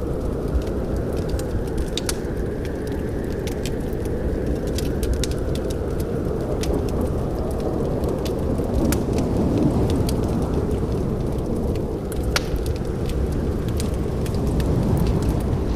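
Wood fire burning in a fireplace: a steady low rushing of the flames with many scattered sharp crackles and pops from the burning logs.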